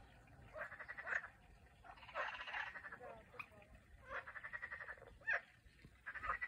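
Frogs croaking in a pond: a series of short calls, each a quick train of pulses, following one another every second or two.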